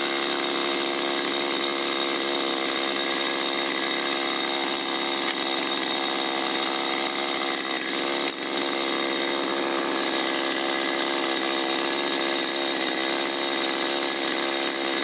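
Stihl 025 two-stroke chainsaw held at full throttle, cutting into a large log at a steady, unchanging pitch, with a brief click about eight seconds in.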